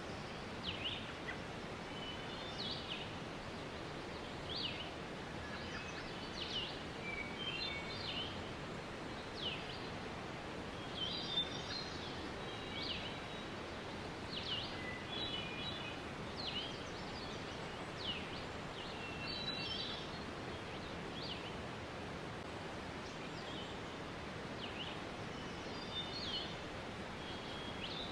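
Waterfall rushing steadily, with birds chirping over it: short down-slurred notes and brief trills every second or two.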